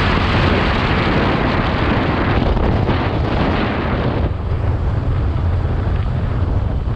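Wind buffeting the microphone, a loud, steady rush with a heavy low rumble, easing a little about four seconds in.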